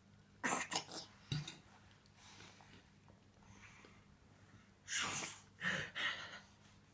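Short coughing sounds in two clusters: a few quick coughs near the start, then two longer coughs about five seconds in.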